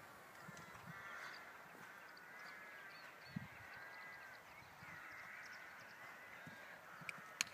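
Faint, distant birds calling: a continuous overlapping chorus of short, rising-and-falling calls, with one dull thump about halfway through and a sharp click near the end.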